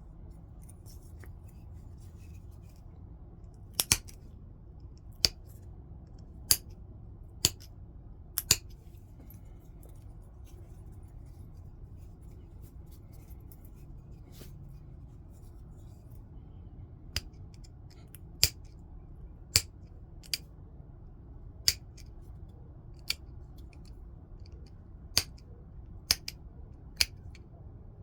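Stone being flintknapped: sharp, separate clicks as flakes snap off the edge of the blank, about a dozen and a half in all, in two runs with a pause of several seconds between them. A faint steady low room noise runs underneath.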